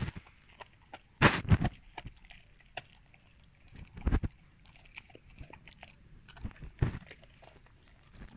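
Rottweiler chewing a raw lamb's head, its jaws biting down hard on bone in loud sudden bursts about a second in, at about four seconds and near seven seconds, with small wet clicks of teeth and meat between.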